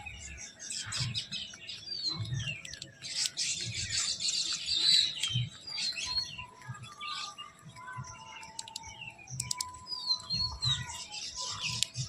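Small birds chirping, with many short, high calls overlapping and a few swooping whistles. The chirping is busiest about three to five seconds in.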